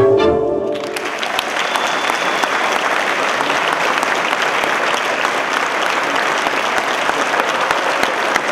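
Recorded tango music ends within the first second, and an audience breaks into steady, sustained applause.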